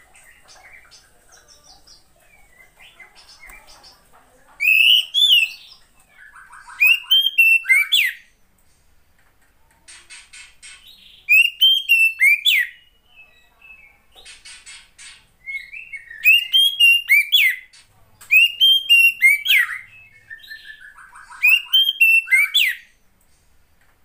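Female oriental magpie-robin (kacer) calling in six short, loud bursts of song spaced a few seconds apart, each a run of quick rising-and-falling whistled notes mixed with rasping notes, with softer scratchy chatter between the bursts.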